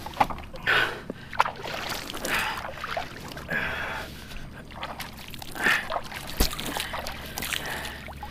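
A man breathing hard, with several heavy puffing exhalations a second or two apart, worn out from fighting a big shark on rod and reel. A few sharp knocks come in between, the loudest just past the middle.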